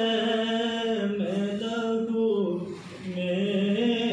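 A man singing a naat, an Islamic devotional poem, unaccompanied into a microphone, holding long gliding notes, with a short break for breath about three seconds in.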